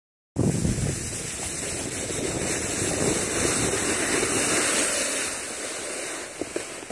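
Steady rushing noise of riding down a snowy slope: wind buffeting the phone's microphone and snow hissing under the moving board. It eases as the rider slows near the end.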